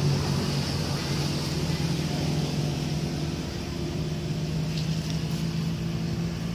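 A steady low engine hum holding one pitch, with a constant high hiss above it.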